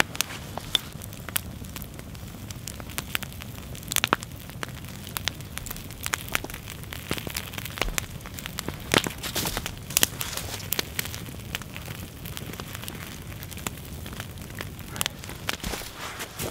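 Wood campfire crackling with irregular sharp pops, a few louder ones scattered through, as a deer bone roasts over it.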